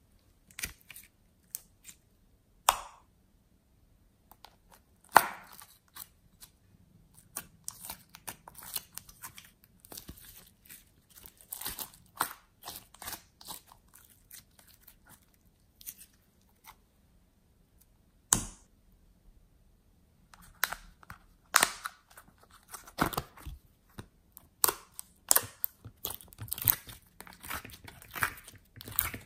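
Glossy slime being stretched, folded and squeezed by hand, giving irregular runs of sticky clicks, crackles and small pops, with a few louder snaps among them.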